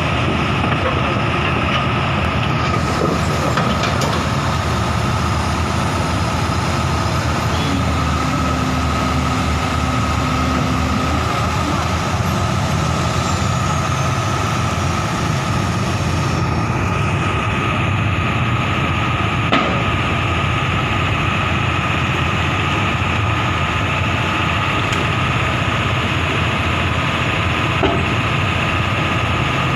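Excavator engine running steadily, with a thin constant whine above the engine noise.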